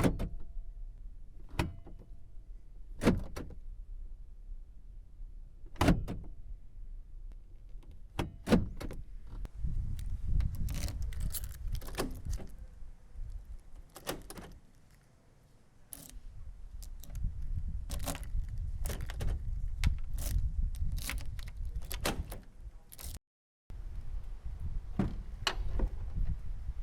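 Parts of a 1990 Volvo 240 being worked by hand: a series of sharp clicks, knocks and rattles, with two longer stretches of low rubbing and rumbling between them.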